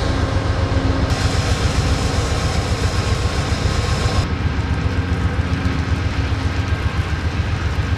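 Diesel locomotive of a stopped Amtrak Cascades train idling: a steady engine hum over a heavy, fluttering low rumble. A higher hiss drops away about four seconds in.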